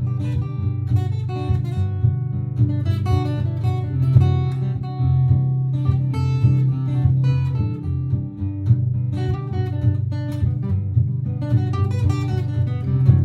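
Martin GPCPA4 acoustic guitar playing: a looped strummed chord part repeating underneath, with picked improvised melody notes over it.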